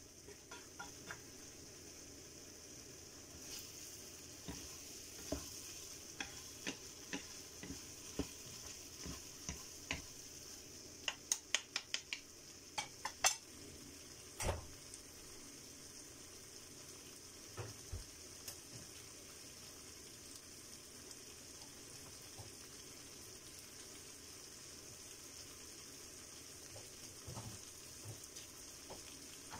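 Ground pork sizzling in a frying pan, with wooden spatulas knocking and scraping against the pan as the meat is stirred during the first half. After that the frying hiss goes on alone, with only an occasional knock.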